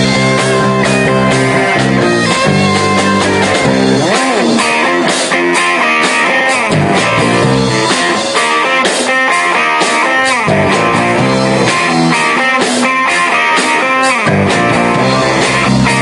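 Live rock band playing: electric guitars over bass and drums.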